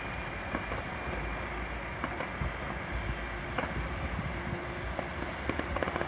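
Distant fireworks: scattered sharp bangs and crackles, with a quick cluster of several near the end, over a steady low rumble.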